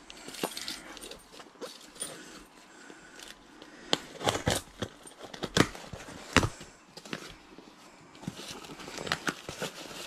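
A cardboard mailing box being opened and handled: crinkling and rustling with many sharp clicks and knocks, the loudest between about four and six and a half seconds in.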